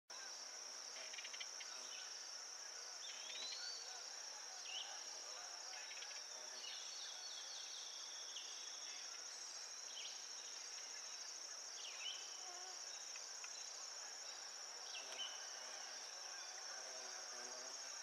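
A steady, high, finely pulsing trill from a chorus of insects, with scattered short chirps and whistled notes from songbirds over it.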